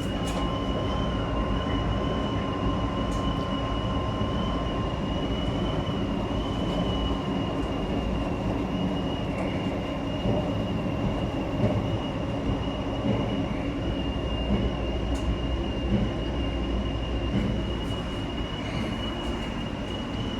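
Coin-operated commercial washing machine running: a steady rumble under a constant high-pitched whine, with a few light clicks.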